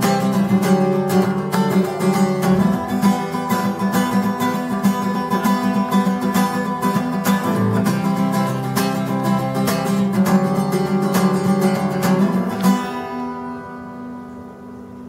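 Acoustic guitar strummed in a steady rhythm. About thirteen seconds in, the strumming stops and the last chord is left to ring and fade.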